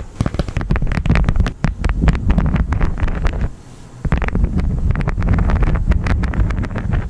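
Honeycomb wax crunching and crackling close to the microphone: a dense run of sharp clicks over a heavy low rumble, with a brief lull about three and a half seconds in.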